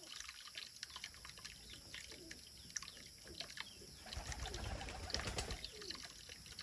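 Quiet background: a few faint calls that fall in pitch, scattered soft clicks, and a low rumble that comes in about four seconds in.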